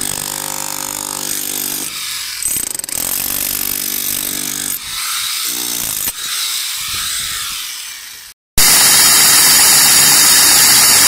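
Handheld electric power tool running on metal pipes: a steady motor whine that stops and restarts several times, shifting slightly in pitch. Just after eight seconds it cuts off, and a much louder, steady rushing machine noise begins.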